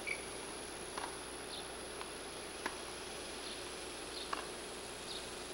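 Faint outdoor ambience under a steady hiss and a thin high whine from the camcorder recording. Scattered faint ticks come every second or so, along with a few short high chirps.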